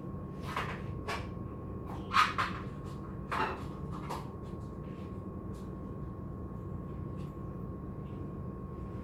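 A few short knocks and clatters of kitchen things being handled, the loudest about two seconds in, then only faint ticks, over a steady background hum.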